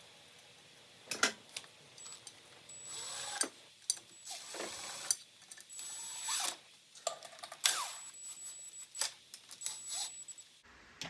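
A tool running in the bolts of a Briggs and Stratton engine cover. About five short bursts of tool noise, each half a second to a second long, come with scattered sharp metal clicks.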